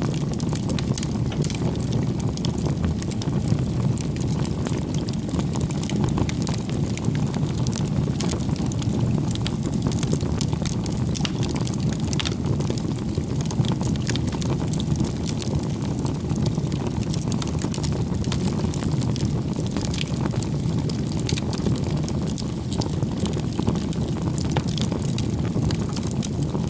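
Wood campfire burning: a steady low rush of flame with frequent small crackles and pops from the burning wood.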